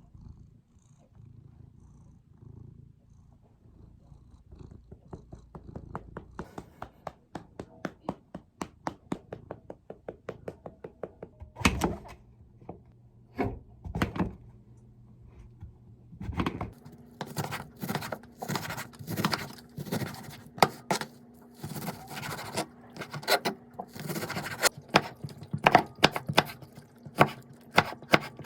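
A hand patting a cat's rump in a steady rhythm, the pats growing louder through the stretch, while the cat purrs.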